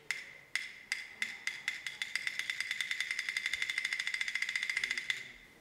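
Suspense sound effect: wood-block-like clicks over a held high tone, starting slow and speeding up to about ten a second, then stopping about five seconds in.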